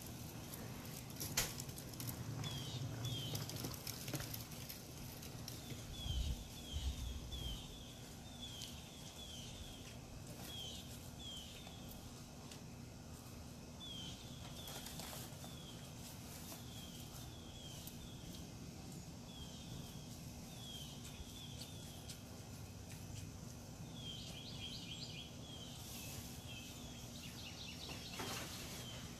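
A bird singing a long series of short downslurred notes, each repeated in quick groups, with a couple of faster trilled runs near the end, over steady outdoor background noise. A sharp click about a second in and a brief low rumble around six seconds are the loudest moments.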